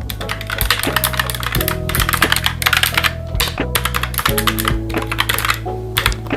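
Typing on a Logitech POP Keys mechanical keyboard: rapid clacking keystrokes with short pauses between runs.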